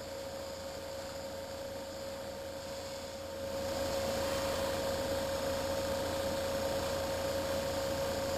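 Steady hum of a hobby spray booth's exhaust fan; about three and a half seconds in, a gravity-feed airbrush starts spraying paint, adding a steady hiss of air that holds to the end.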